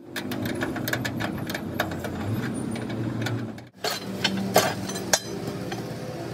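Mechanical workshop noise: a steady low hum with many sharp clicks and clanks, broken by a brief cut to silence about four seconds in.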